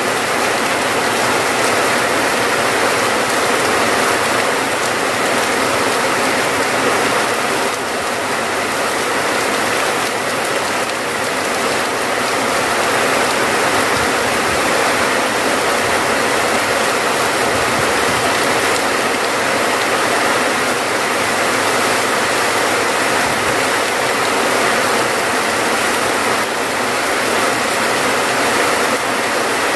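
Steady, heavy rain falling, an even, dense hiss without pauses.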